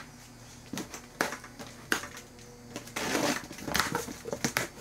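Scissors cutting plastic packing straps and tape on a cardboard box: a few sharp snaps and clicks, then from about three seconds in a denser stretch of cardboard rustling and scraping.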